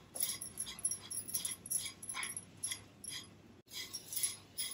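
Wooden spatula stirring and scraping a dry mixture of grated carrot and roasted besan around a nonstick kadai, a rough scrape about two or three times a second, with a brief pause near the end.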